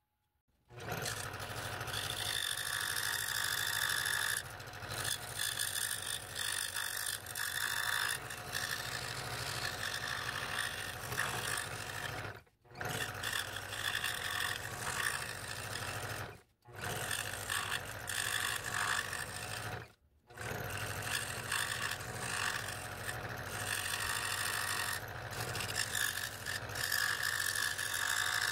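Scroll saw running, its reciprocating blade cutting fretwork through wood. The steady machine sound breaks off abruptly three times for a moment each.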